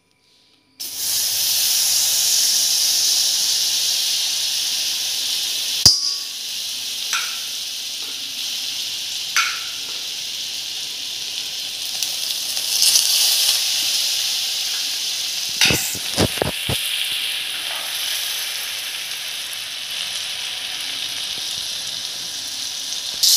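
Butter sizzling in a hot pan, with a steady hiss that starts suddenly about a second in as the butter goes in. A sharp click comes a few seconds later, and a quick run of clicks follows past the middle.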